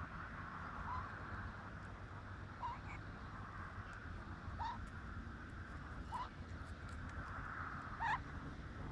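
Black-headed caique giving short, rising squeaky calls, five in all, spaced about one and a half to two seconds apart, the last one the loudest, over a steady background hiss.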